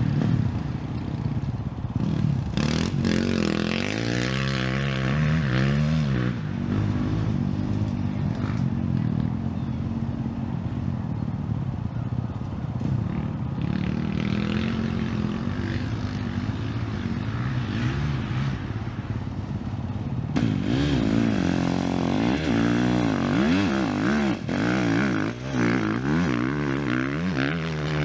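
Dirt bike engines running, one close by revved up and down in quick rising and falling pitches about three seconds in and again from about twenty seconds in, over the steady sound of other bikes.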